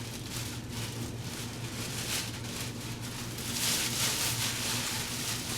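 Packaging being unwrapped by hand: irregular rustling and crinkling over a steady low hum.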